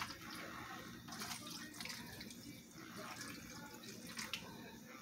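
Faint, scattered light clicks and rustles of food being handled over a foil roasting pan.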